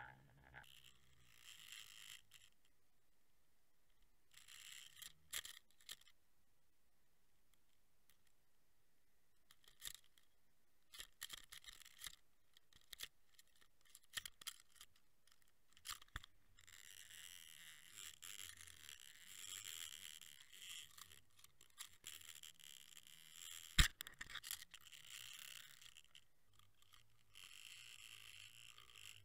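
Faint underwater rushing and scattered clicks and knocks from an underwater camera rig on a fishing line as it spins and moves through the water, with one sharper click late on.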